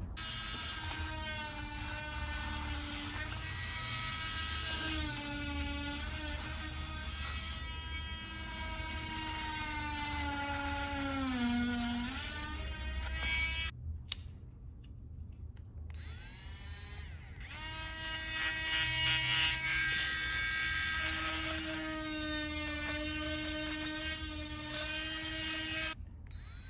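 Cordless 3.7 V rotary tool's small motor running with a high whine, its pitch wavering and sagging about twelve seconds in. It stops around fourteen seconds, then spins back up with a rising whine and runs until just before the end.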